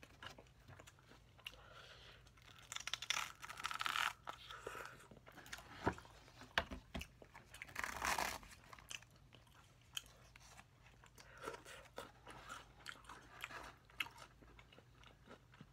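Close-up chewing and crunching while eating a crispy fried-chicken meal: many small crunches and mouth clicks, with louder crunching stretches about three to four seconds in and again around eight seconds.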